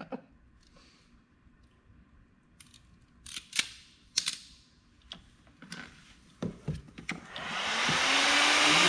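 Scattered sharp clicks and handling noises from a hand crimping tool working wire connectors. About seven seconds in, an electric heat gun switches on and its fan spins up to a steady, loud blowing hiss as it heats a heat-shrink connector on the fan wiring.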